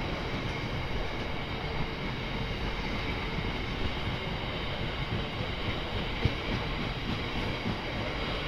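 Freight train of covered hopper wagons rolling steadily past over a level crossing: a continuous rumble and rattle of wheels on rail, with one sharp knock about six seconds in.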